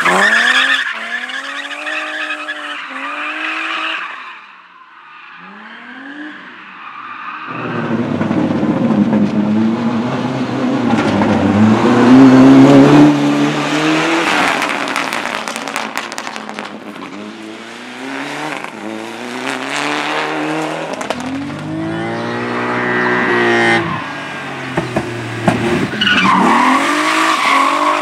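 Race car engines revving hard and climbing through the gears, with the pitch rising and dropping back at each shift, as cars fade off and then come close, loudest about halfway through. Tyres squeal and skid under the hard driving.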